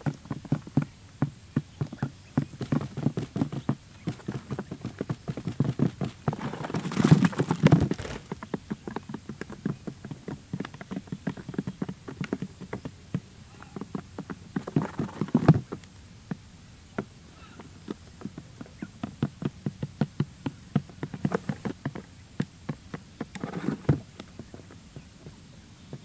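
Quail pecking grain off a hard tray: many quick, irregular tapping clicks of beaks on the board, broken three times by a louder scuffle of about a second.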